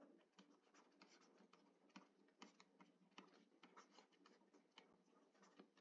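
Near silence with faint, irregular ticks of a stylus tapping and sliding on a tablet screen while handwriting.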